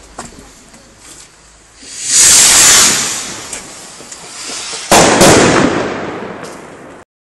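A New Year's rocket carrying a La Bomba firecracker: faint scattered pops of distant firecrackers, then the rocket launches with a loud hiss about two seconds in, and about three seconds later the La Bomba goes off with a sudden loud bang that dies away over a second or two.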